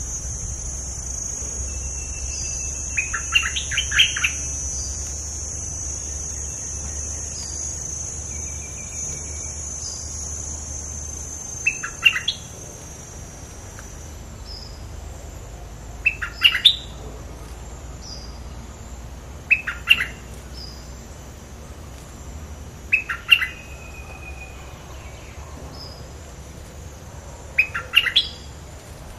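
A bulbul gives short, quick chirping phrases, six of them a few seconds apart. A steady high insect buzz sounds underneath through the first half and stops about halfway through.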